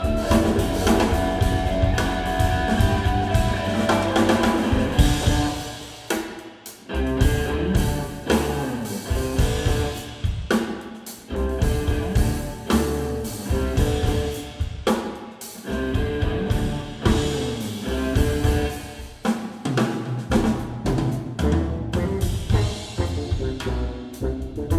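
Live instrumental groove from an electric guitar, electric bass and drum kit playing together. Stop-start accents leave short breaks every four seconds or so.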